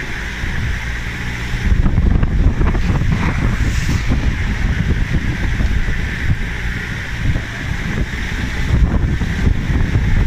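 Off-road vehicle engine running steadily, with rumbling wind noise on the microphone that gets louder about two seconds in.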